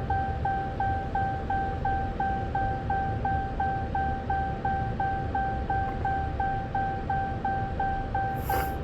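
Dodge Challenger's electronic warning chime repeating steadily at about three beeps a second, sounding with the ignition in run and the engine off, over a steady low hum. A brief rustle comes near the end.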